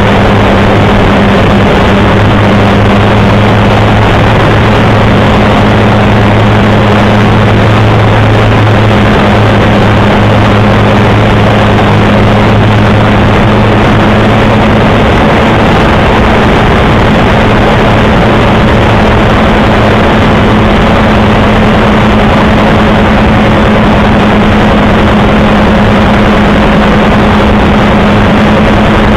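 Loud, steady drone of a Dyke Delta's rotary engine and propeller with air rushing past, heard from inside the cockpit in flight.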